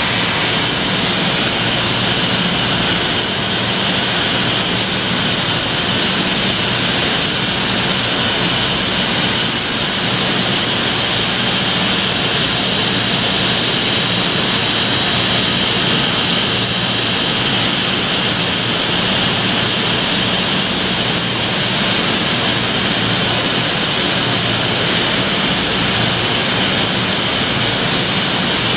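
Steady, loud machine whir with a high whine and a low hum from a powered-up Okuma & Howa 2SP-25HG CNC twin spindle vertical lathe, with no change in pitch or level.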